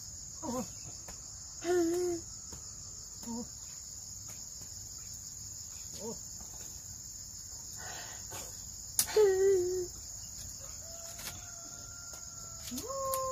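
Steady high-pitched drone of insects, with a few short calls over it now and then, the longest a rising call held briefly near the end.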